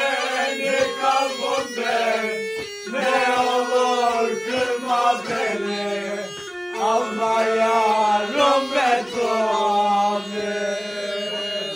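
Music: a singing voice carrying a wavering, ornamented melody in phrases, with brief breaks between them, over a steady held drone.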